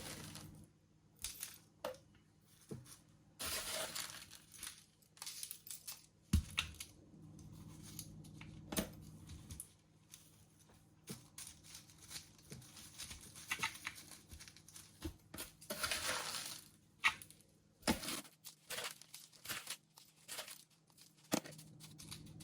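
Scattered rustling, crinkling and small clicks of hands handling young alocasia plants and potting material, with a faint steady hum underneath.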